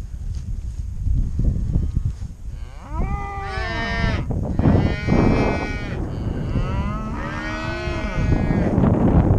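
Cattle mooing: two long bawls, the first about three seconds in, bending down in pitch, the second about seven seconds in. A steady low rumble runs underneath.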